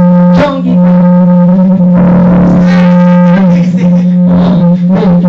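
Loud live band music, overloaded and distorted in the recording: one steady droning note held throughout, with guitar playing over it.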